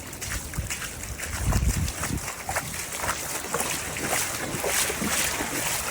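Floodwater rushing and splashing, with wind buffeting the microphone.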